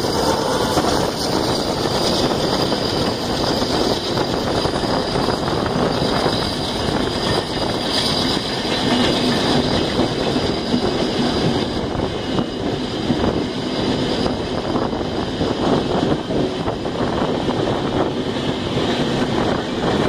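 Steady running noise of two trains at speed: steel wheels rolling and clattering on the rails, heard from aboard a suburban local train while the Duronto Express coaches pass on the adjacent track.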